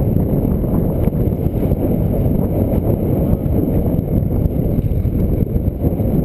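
Strong wind buffeting the camera's microphone: a dense, steady rumble.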